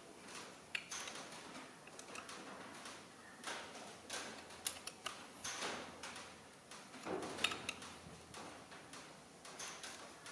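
Irregular light metallic clicks and taps of a ring spanner working the top-cover bolts of a CAV injection pump as the cover is snugged down, with the pump being handled on the bench.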